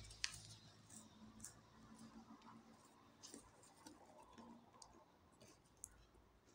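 Near silence with faint, scattered clicks and crunches of chocolate wafer bars being bitten and chewed and their wrappers handled.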